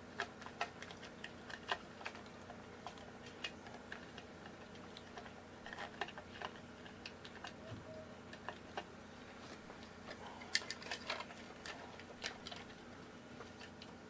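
Faint, irregular small clicks and taps of hands and a small tool on metal guitar hardware, as the electronics are loosened and taken out of an SG-style electric guitar.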